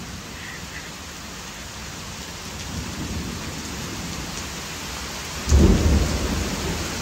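A rainstorm with a steady hiss of heavy rain on a concrete yard. About five and a half seconds in, a sudden loud low rumble rises and slowly eases.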